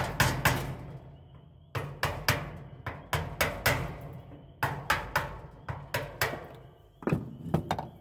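Claw hammer striking a screwdriver to drive a worn plastic caster socket insert out of a grill's steel leg: sharp blows in quick runs of three or four, with short pauses between the runs.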